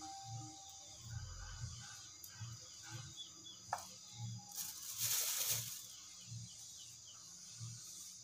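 Faint handling noises of food preparation at a table: scattered soft knocks, a sharp click, and a rustle about a second long around the middle, which is the loudest sound. Faint chirps and a steady high hiss run underneath.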